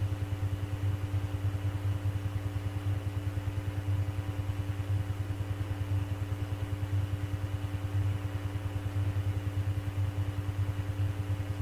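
Steady low electrical hum with a rapid, even pulsing and a faint higher tone over it: the background noise of an air traffic control radio recording between transmissions.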